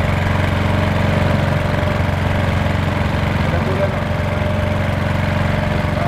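Small engine on an artisanal octopus-fishing boat running steadily at a constant speed, a low, even hum, as the line of octopus pots is hauled aboard.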